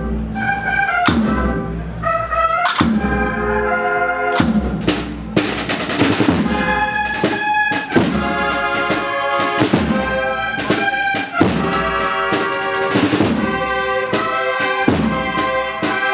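A cornet and drum band (banda de cornetas y tambores) playing a processional march: bugles sound short phrases, then longer held chords, over drum strokes.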